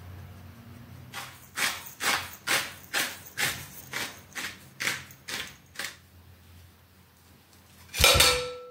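Hand pepper mill grinding black peppercorns into a bowl: about eleven grinding strokes, roughly two a second. Near the end comes one sharp clink with a brief ring.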